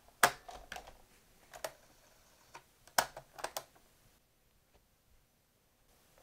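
Piano-key transport buttons of a 1970 Sony TC-120 cassette recorder being pressed: sharp mechanical clicks and clunks in two clusters, a few just after the start and three more about three seconds in.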